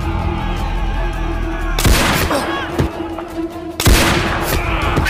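Background music with loud blasts crashing over it, once about two seconds in and again about four seconds in.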